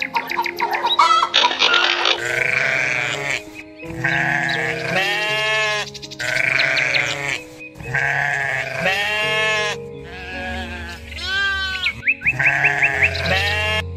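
About six bleating animal calls in quick succession, rising and falling in pitch, over background music with steady held tones.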